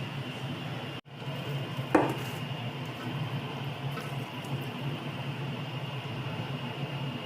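Steady mechanical hum of a kitchen appliance with a faint high whine. About two seconds in comes a single short clatter of kitchenware, the loudest sound here.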